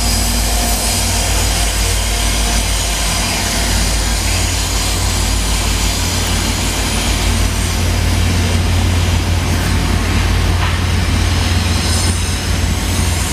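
VIA Rail F40 diesel locomotive passing at the head of a passenger train, then its cars rolling by: a loud, steady low rumble of engine and wheels on the rails.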